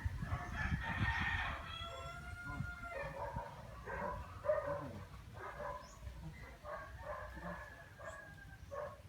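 A rooster crowing: one long drawn-out crow in the first couple of seconds, then a string of shorter calls, over a low rumble.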